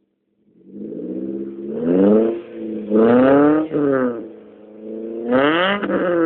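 Suzuki SX4's four-cylinder petrol engine revved three times through an aftermarket exhaust with the front catalytic converter removed, two resonators and a rear muffler; each rev rises in pitch and falls back, the middle one held longest.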